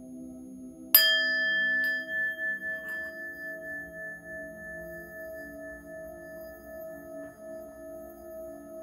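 A singing bowl struck once about a second in, ringing on in a long, wavering tone that fades slowly. Lower steady tones sound underneath.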